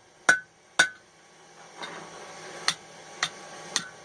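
Hammer blows cutting partway through a hot mild steel flat bar on an anvil: two sharp ringing strikes about half a second apart. After them a steady hiss sets in, with three lighter taps about half a second apart.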